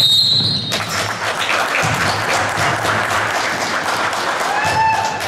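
A referee's whistle blows for under a second on a shot, calling a foul, then the gym crowd claps and cheers.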